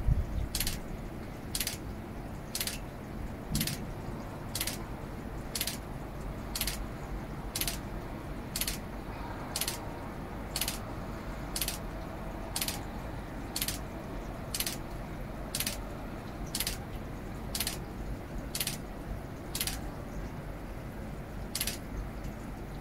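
A short, sharp, hissy tick repeating about once a second, skipping a beat near the end and then stopping, over a steady low rumble.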